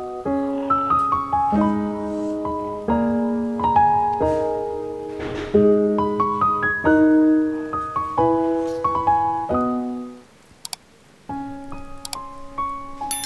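Background piano music playing a melody of single notes and chords; it breaks off for about a second, about ten seconds in, then starts again.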